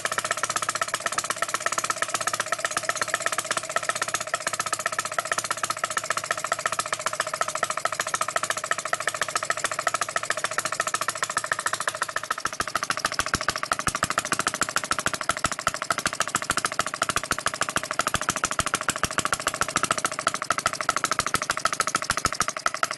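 Scratch-built Webster-type model single-cylinder four-stroke petrol engine running on its own after a drill start, a steady rapid firing beat with sharp exhaust knocks that gets heavier in the low end about halfway through. The builder says it still runs a little rich with a bit of a misfire.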